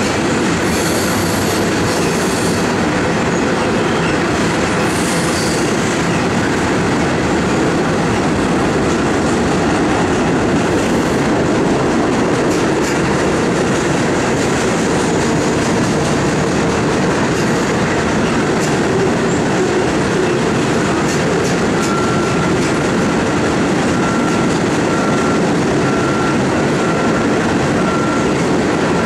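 Freight cars of two trains passing close together, a loaded mixed manifest and an empty coal train: a steady rumble and clatter of steel wheels on rail, with brief high-pitched wheel squeals.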